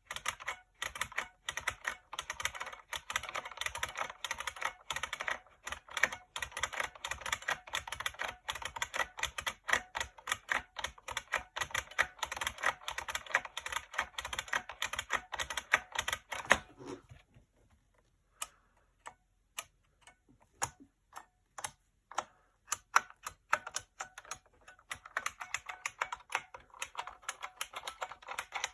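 IBM Model M keyboard's buckling-spring keys clicking under fast, continuous typing. About seventeen seconds in, the typing thins to scattered single keystrokes for several seconds, then speeds up again near the end.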